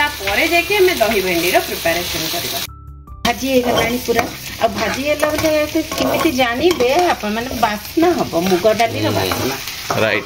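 Okra stir-frying and sizzling in a nonstick frying pan while a wooden spatula stirs and scrapes through it. After a brief cut about three seconds in, a steel spatula stirs dry moong dal in an aluminium pressure cooker.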